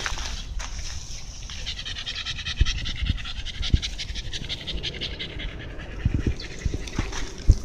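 Shiba Inu panting rapidly and steadily, with a few soft low thumps.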